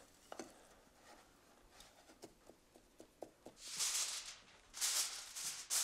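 Aluminium foil crinkling in several short rustling bursts as it is laid over a baking pan and pressed around its rim, starting a little past halfway; before that, only a few faint light taps.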